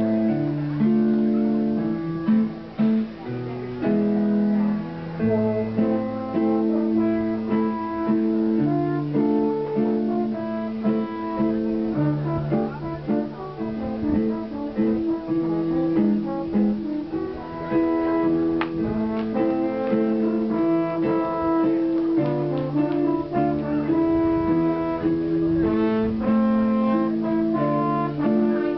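French horn playing a melody of held notes, accompanied by chords on an electronic keyboard.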